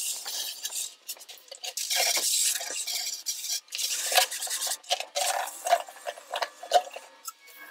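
Garden hose spraying water into a plastic water-softener brine tank being rinsed out, the spray hissing in several stop-start bursts with water splashing inside the tank. Short knocks and clatter come from the plastic tank as it is tipped and handled.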